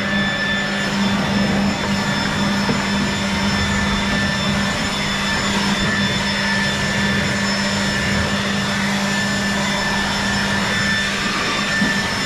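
Cordless Ryobi Jet Fan leaf blower running at a steady speed: a rush of air under a high, even motor whine, blowing out a generator enclosure.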